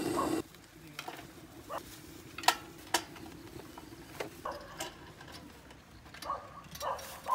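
A butane torch hisses at the feed opening of a homemade stainless-steel rocket stove and cuts off about half a second in. A few sharp clicks and knocks of wood and metal follow as the feed tube is handled.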